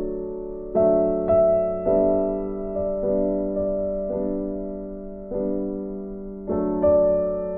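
Gentle background piano music: soft chords struck about once a second, each left to ring and fade.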